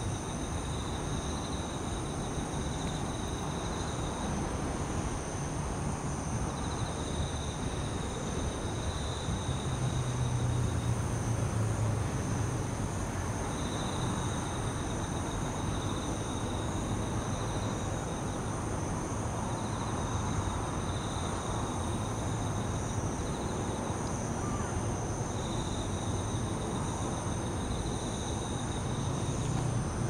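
Bell crickets (suzumushi) singing in repeated ringing phrases of two to three seconds with short pauses between, over a steady high trilling of other insects. A low hum of distant city traffic runs underneath and swells briefly about ten seconds in.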